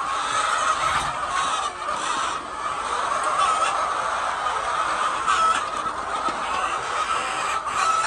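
A large flock of white hens clucking continuously, many voices overlapping into a steady din.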